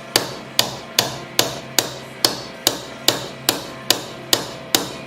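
Small hammer tapping steadily and lightly, about two strikes a second, driving a pin out of a folding knife's handle held in a vise; each tap rings briefly.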